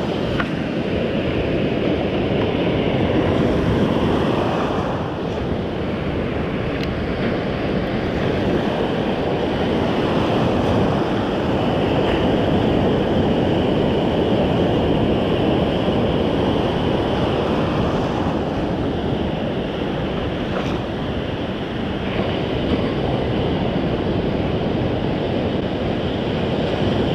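Ocean surf breaking and washing up the beach in shallow water, a steady rushing that swells and eases slowly, with wind buffeting the microphone.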